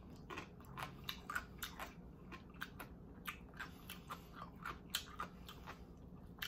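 Close-miked chewing of thick, chewy ramen noodles: a run of wet mouth smacks and clicks, a few each second.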